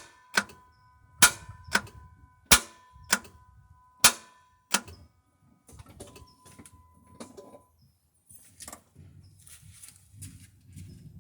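Starter motor clicking sharply about eight times at uneven intervals, each click leaving a brief metallic ring, with no cranking heard; the clicks stop about five seconds in, leaving faint rustling and knocks.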